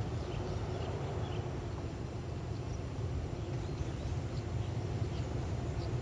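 Steady low rumble of an approaching Alsthom diesel-electric locomotive hauling a passenger train, with faint bird chirps scattered above it.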